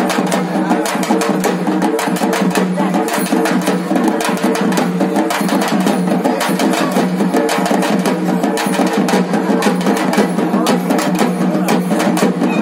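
Drums beaten fast and without a break, many sharp strikes packed close together.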